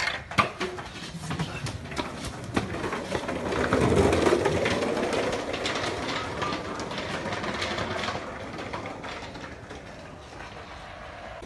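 Skateboard wheels rolling on a concrete walkway, a steady rattling rumble with a few sharp clicks near the start. It grows loudest about four seconds in, then fades as the board rolls away.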